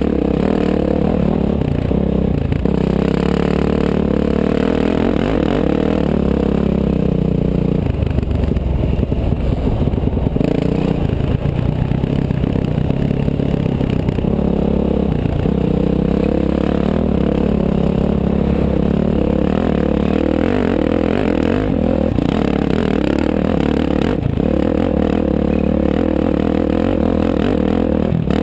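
Enduro dirt bike engine heard from the rider's on-board camera, running under load and rising and falling in revs as it climbs a rough dirt track, with the rattle of the ride mixed in.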